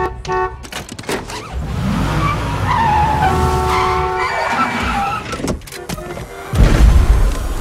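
Car tires squealing and skidding over engine rumble, with gliding squeal tones, then a heavy low thump about a second before the end. A short run of repeated horn-like notes sounds at the very start.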